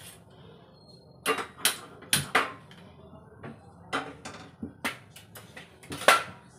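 Irregular sharp clicks and knocks as a gas stove burner is lit and a frying pan is handled on its metal grate, the loudest near the end.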